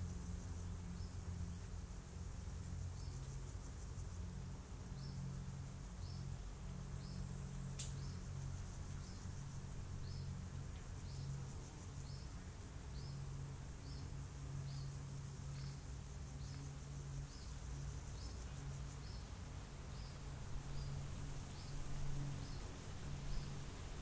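Summer forest ambience: insects trilling high and steady, with a short high chirp repeating about once a second over a low steady rumble. A single sharp click about a third of the way through.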